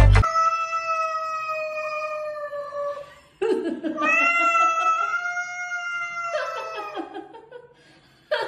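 A cat yowling in two long drawn-out calls with a short break between them: the first sags slightly in pitch, the second rises and then holds.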